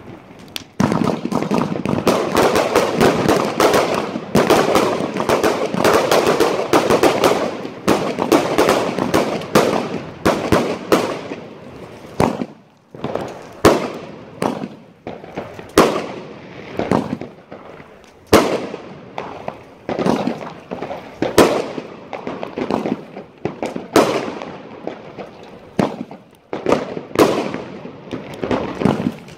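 Fireworks going off overhead. About a second in comes a dense, unbroken crackle lasting some ten seconds, and after that separate sharp bangs and short crackles, one or two a second.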